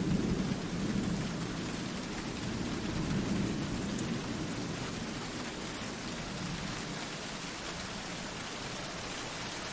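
Steady rain falling, with a low rolling rumble of thunder that dies away over the first half or so.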